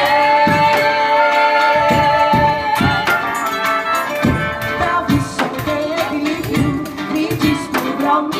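Live acoustic band playing: wind instruments hold two long notes for the first few seconds, then a lower melody moves over a steady beat of Brazilian hand percussion such as pandeiro and zabumba.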